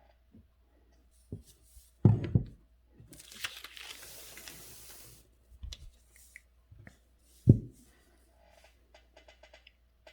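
Handling noise at a calligraphy desk: a few heavy thumps of things set down on the table, about two seconds of paper rustling between them, and a quick run of light clicks near the end.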